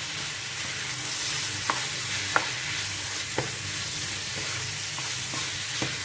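Minced meat sizzling as it fries in a non-stick frying pan while a spatula stirs and breaks it up, with a few knocks of the spatula against the pan.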